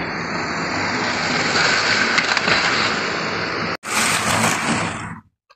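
Model train running close to the microphone: a steady rushing noise of motor and wheels on the rails. It breaks off for an instant a little before four seconds in, then stops abruptly about half a second before the end.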